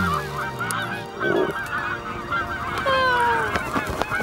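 A flock of geese honking, many short overlapping honks at once, with a couple of longer falling calls about three seconds in.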